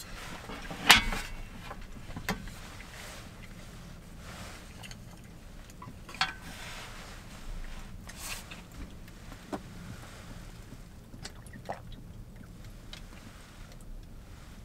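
A small pot is set down on a tray with a sharp knock about a second in, followed by a few lighter clicks of chopsticks against the pot, over a steady low hum.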